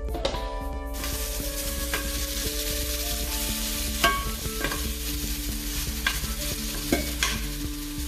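Italian sausage sizzling in a hot cast-iron skillet, the sizzle starting about a second in. A few sharp clicks of a utensil against the pan are heard as it is stirred.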